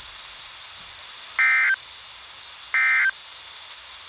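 Emergency Alert System SAME digital data bursts, the end-of-message code: two short, identical bursts of rapid two-tone warbling about a second and a half apart, with a third starting right at the end, over the steady hiss of a weather radio channel. They mark the end of the alert.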